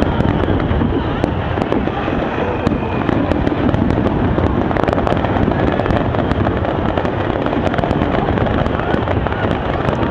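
Fireworks display: a dense, continuous barrage of bursts with many sharp crackles throughout.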